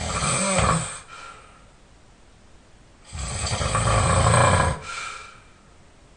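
A man snoring in his sleep. One snore trails off about a second in, and a full snore of about two seconds follows around three seconds in, on a slow rhythm of roughly one snore every four seconds.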